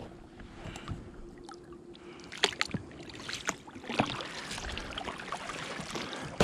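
Oar of an inflatable boat paddling and splashing in shallow water. Quiet at first, then a few sharp splashes and knocks from about two and a half seconds in.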